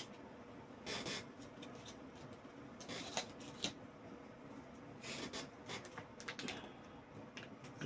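Faint, scattered light clicks and brief rustles of hands handling DDR4 RAM sticks and the motherboard while the memory is fitted.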